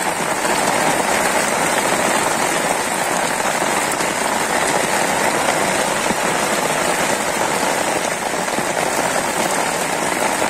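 Rain falling steadily on shallow floodwater, an even patter of drops splashing on the water's surface.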